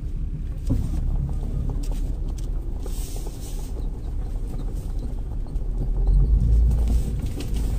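Jeep Liberty (KJ) crawling up a rough dirt trail, heard from inside the cab: a low engine rumble with irregular knocks and rattles from the body and suspension jolting over the ruts. The rumble is heaviest about six seconds in.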